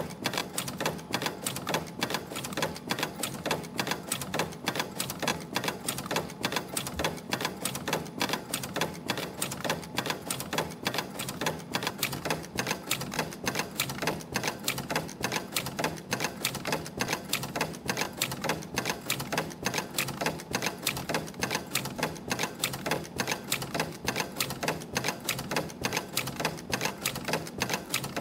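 YHM EF-210 CNC extension spring machine forming German-hook extension springs from 0.5 mm wire at about 70 springs a minute. Its tooling clicks and clatters in a fast, steady rhythm over a low mechanical hum.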